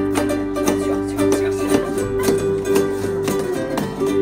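Ukulele strummed in a lively rhythm, with a steady held note sounding over the strums.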